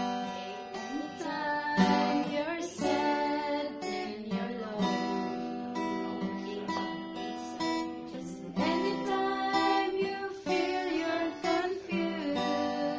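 Two women singing a gospel song together to a strummed acoustic guitar; the voices come in over the guitar chords a second or two in.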